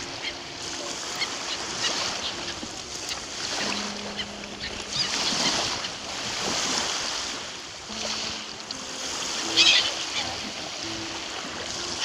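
Small sea waves lapping and washing onto a sandy shore, swelling and ebbing every few seconds, with a gull's short call late on.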